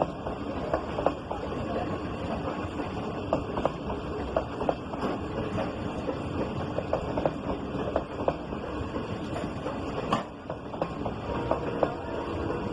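Passenger train rolling slowly out of a station: a steady rumble of the cars moving, with frequent irregular clicks and clanks from wheels and couplings, and one sharp crack about ten seconds in.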